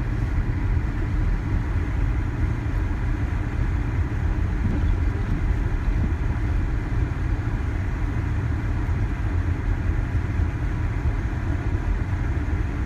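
Steady low rumble of a car's engine and tyres while driving on a snowy road, heard from inside the cabin.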